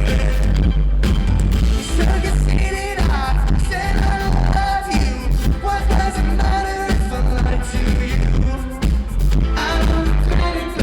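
Live band playing an up-tempo pop-rock song, with sung vocals over drums and a heavy, booming bass.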